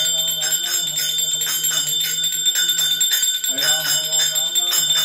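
Hand bell rung rapidly and without pause during Hindu arati, several strikes a second blending into one continuous high ringing. A voice chanting or singing runs underneath.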